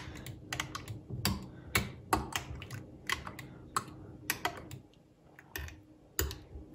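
Metal spoon clinking irregularly against the inside of a glass jar, a few clinks a second, as milk is stirred in it for kefir.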